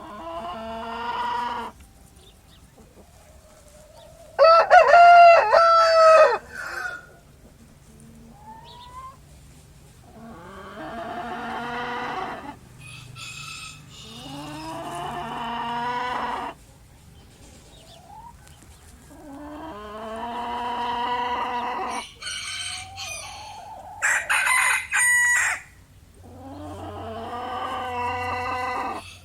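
Roosters crowing one after another, about seven long crows spaced a few seconds apart, some louder and nearer than others.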